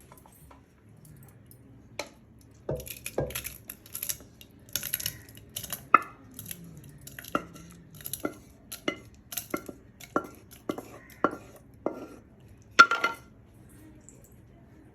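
Cooked dal and drumstick leaves being mashed in a metal pressure cooker: a utensil knocks and scrapes against the pot, irregularly at first, then in a steady rhythm of about two strikes a second. The loudest knock comes near the end.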